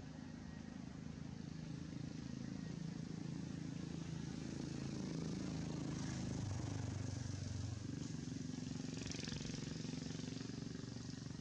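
An engine running steadily with a low hum, its pitch shifting slightly about halfway through.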